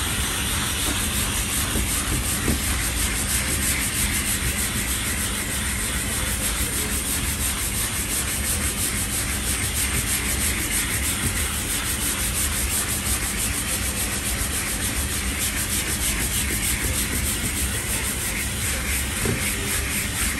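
Hand-sanding cured 3M Platinum Plus body filler on a car door with a 3M purple sanding block and abrasive paper: continuous rapid rubbing strokes, over the steady hum of a dust extractor drawing through the block's hose.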